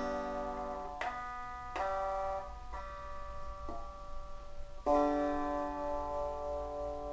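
Gibson EDS-1275 double-neck electric guitar played on its six-string neck: about five chords struck slowly, each left to ring out. The chord about five seconds in is the loudest.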